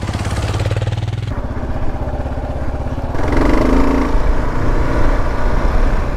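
Kawasaki KLR 650 motorcycle's single-cylinder engine running on the move. Its note shifts about a second in and it gets louder from about three seconds in.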